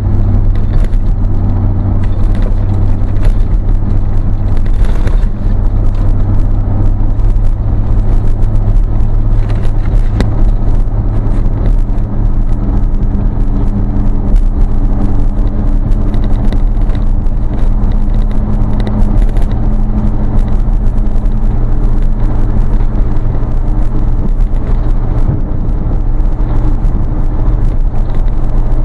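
A road vehicle's engine, exhaust and tyres at a steady cruising speed, heard from inside the cab: a loud, steady low drone.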